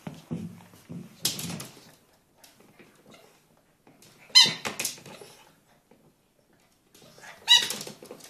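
Rubber pig squeak toy being squeezed by a Keeshond's bite, letting out sharp squeaks: two about four and a half seconds in and another near the end.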